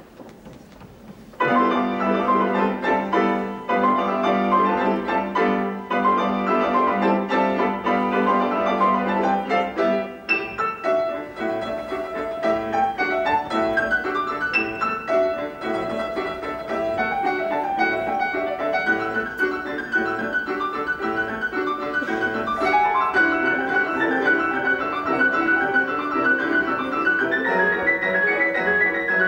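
Eight-hand piano ensemble on two grand pianos, one a Steinway & Sons, playing classical music. It starts abruptly about a second and a half in, and the texture changes about ten seconds in.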